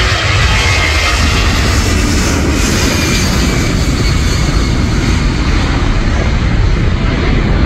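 Boeing C-17 Globemaster III's four Pratt & Whitney F117 turbofans at take-off power as the transport lifts off and climbs away: a loud, steady jet noise with a strong deep rumble.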